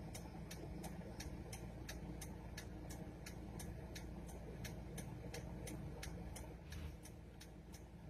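A car's indicator ticking evenly, about three clicks a second, over the steady low rumble of the car inside its cabin.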